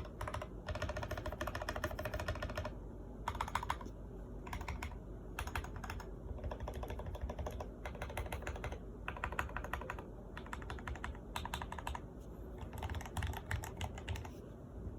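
Typing on an Akko MOD001 mechanical keyboard fitted with Jwick Yellow linear switches: keystrokes in quick runs, broken by short pauses of about half a second to a second.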